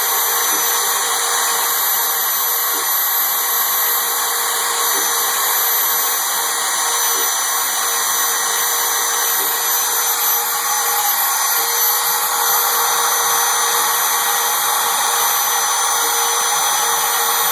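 CNC router spindle running steadily while its bit carves a 3D relief into Corian: a steady high whine over an even cutting hiss.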